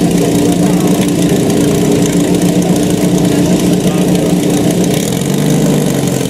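Portable fire pump's petrol engine running steadily under load, with water splashing from the pump; about five seconds in its pitch drops to a lower, steadier note.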